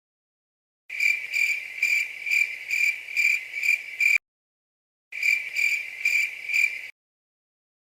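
Cricket chirping sound effect, about two chirps a second, in two stretches that start and cut off abruptly, the second one shorter.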